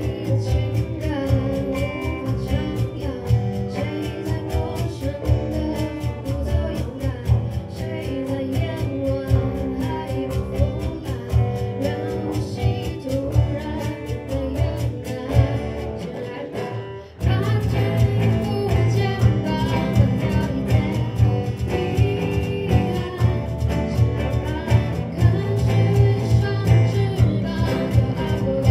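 A small live acoustic band playing a song: strummed acoustic guitars, electric bass and cajon under a young woman's lead vocal. The music dips briefly about seventeen seconds in, then comes back fuller and louder.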